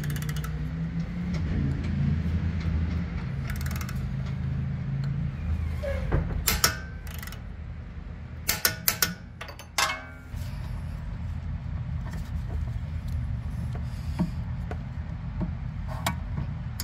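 Click-type torque wrench being pulled on a suspension arm bolt, giving several sharp metallic clicks about six and a half seconds in and a quick run of clicks about nine seconds in as it reaches its set torque, over a steady low hum.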